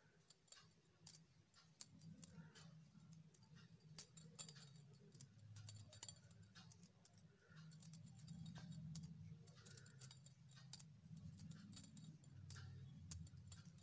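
Near silence, broken by faint, irregular clicks of metal knitting needles as a row of wool is purled stitch by stitch, over a low steady hum.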